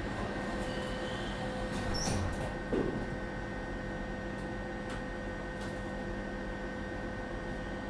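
Inside a Tatra T4DC tram: a steady hum made of several held tones. A brief high squeak comes about two seconds in, and a single knock follows just under a second later.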